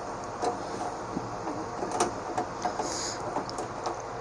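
Scattered light clicks and knocks, with a short scrape about three seconds in, as hands handle a desktop computer's case and cables while preparing to open it.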